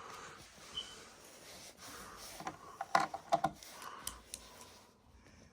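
Plastic clicks and knocks from a Beyblade spinning top being handled, with a quick run of clicks about three seconds in.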